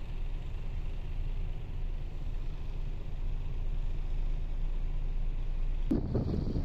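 Diesel truck engine idling, a steady low rumble. Near the end it gives way to louder, gusty noise.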